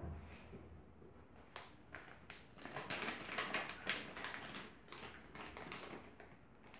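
Crinkling of a plastic sweet packet and light taps as marshmallows are tipped into a blender jar. It comes as a close run of small rustles and clicks, thickest from about a second and a half in until past four seconds.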